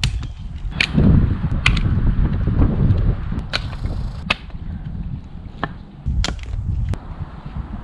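Firewood being chopped and split by hand: about seven sharp chops of a blade into wood, spaced unevenly. A low rumble of wind on the microphone runs underneath.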